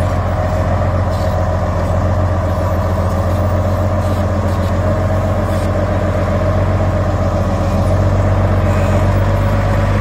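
Komatsu D50A-17 crawler bulldozer's diesel engine running steadily under load while the dozer pushes soil and rocks with its blade. It is a loud, even drone that grows a little louder near the end.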